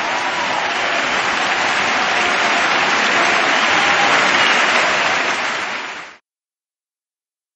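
Applause, many hands clapping, fading out and cutting off about six seconds in.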